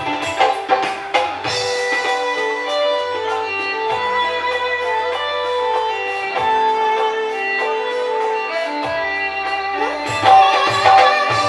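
Live band playing an instrumental interlude with no singing: a melody of held notes over a soft backing. Drum hits in the first moment drop away and come back in near the end.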